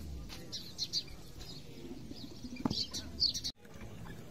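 Small birds chirping in short high notes over a low murmur of outdoor voices, with one sharp knock about two and a half seconds in and a brief dropout near the end.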